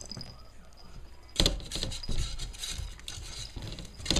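Cavalier King Charles spaniel puppies scuffling and scrabbling while playing with a plush toy close to the microphone, with irregular small clicks and a loud knock about a second and a half in.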